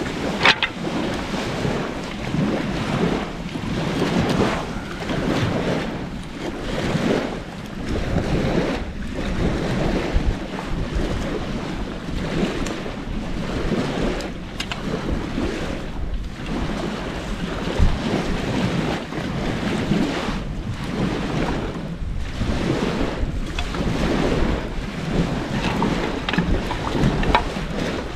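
Campfire burning with a few sharp pops, under gusting wind buffeting the microphone in uneven swells.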